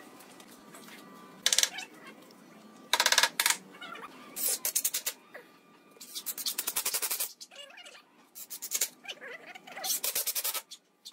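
Cordless drill driving screws through a metal bracket into a wooden post in about six short bursts, the longest about a second, with pauses between them as each screw is seated.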